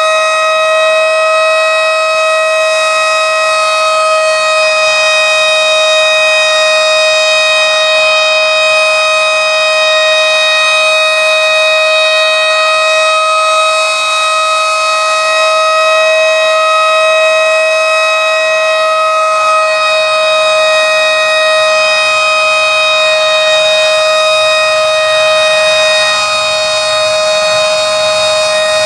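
Federal Signal 2001-130 outdoor warning siren sounding its steady alert tone: one continuous, unwavering pitch at even loudness.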